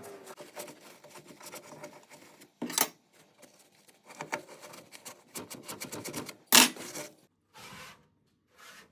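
Hand scrubbing with quick back-and-forth scraping strokes, broken by two loud knocks, about three seconds apart.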